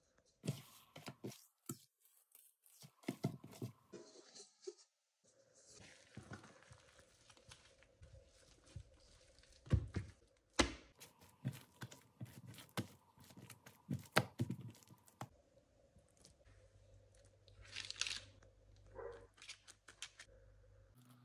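Scattered short, soft noises of hands working pizza dough on a worktop: the dough pulled and torn apart, with the odd sharp knock, over a faint steady hum.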